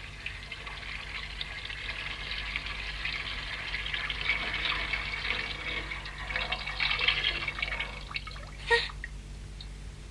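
Milk poured in a steady stream from a wooden bucket into a copper cauldron, stopping about eight seconds in. A short sharp knock follows soon after.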